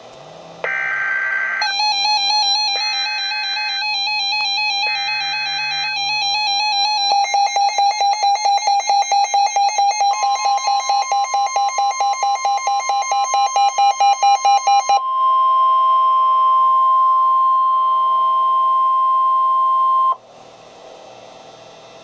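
NOAA Weather Radio emergency alert on a Midland weather radio: three short buzzy digital data bursts about a second apart (the SAME header), with the receiver's own warbling alarm sounding over them and switching to rapid even beeping about seven seconds in. From about ten seconds a steady high warning tone, the 1050 Hz NOAA alert tone, sounds on its own for about ten seconds and cuts off abruptly.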